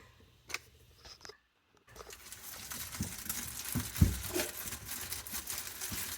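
Hands working on the old sink drain's parts: a few faint clicks, then, after a brief gap, dense rustling, scraping and crackling with several knocks. The loudest knock comes about four seconds in.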